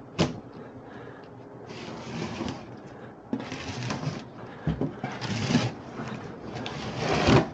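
An open scissors blade slitting packing tape along the seam of a cardboard box, in about four scratchy cutting strokes, the last the loudest.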